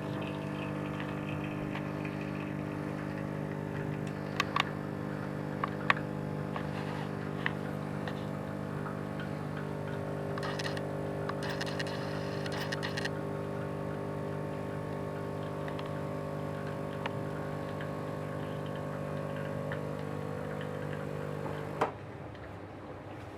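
DeLonghi 35.31 pump espresso machine running its vibratory pump, a steady hum, while pulling a shot of espresso. A few light clicks sound early on the hum, and the pump cuts off with a click a little before the end.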